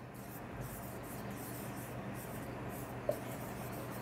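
Marker pen writing on a whiteboard: a run of short, uneven scratchy strokes as a word is written out.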